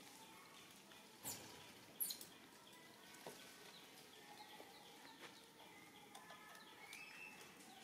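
Faint outdoor ambience with soft, distant bird calls and two short, sharp high-pitched sounds about one and two seconds in.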